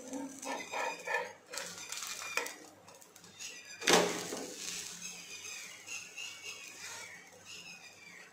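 Kitchen clatter at the stove: one sharp knock about four seconds in, the loudest sound, with short, faint, high chirps repeating over it.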